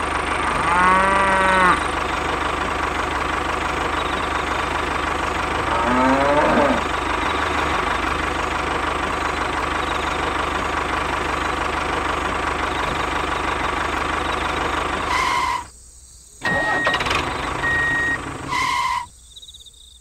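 Tractor engine running steadily, with a cow mooing twice: once about a second in and again around six seconds. Near the end the engine sound cuts out briefly twice, with two short high beeps in between.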